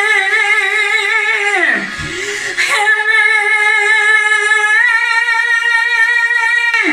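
A woman singing a slow Italian pop ballad, holding a long note with vibrato. About two seconds in her pitch slides down, then she holds a second, longer note of about four seconds that ends just before the close.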